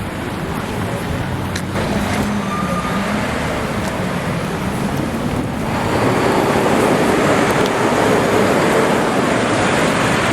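Street traffic: passing cars with tyre and engine noise, louder about six seconds in.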